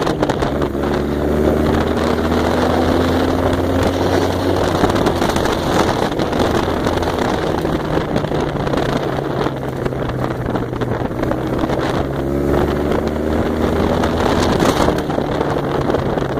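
Small engine of an off-road buggy running steadily at speed over a dirt track, with wind noise on the microphone. The engine note climbs gradually about twelve seconds in.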